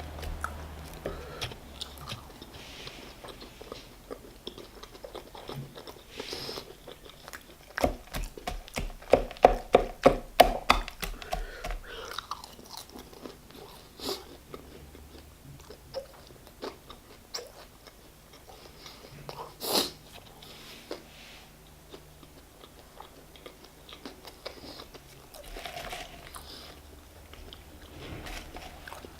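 A person eating a chicken burger and fries: biting and chewing, with a run of loud crunching bites about eight to twelve seconds in and one sharp crunch near twenty seconds.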